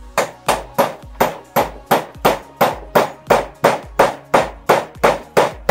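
Hammer blows on wood, evenly paced at about three a second with no pause, as in nailing together a timber roof.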